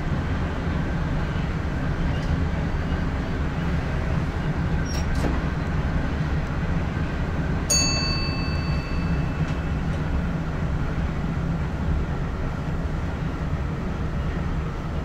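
NS ICM (Koploper) electric train running at speed, heard inside the driver's cab as a steady low rumble. About eight seconds in, a single bright metallic ding rings out and fades over about a second and a half.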